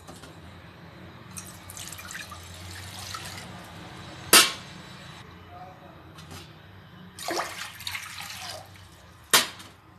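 Water poured from a tumbler into an aluminium pressure cooker, splashing onto the metal bottom in two pours. Two sharp metal clinks, the loudest sounds, come between and after the pours.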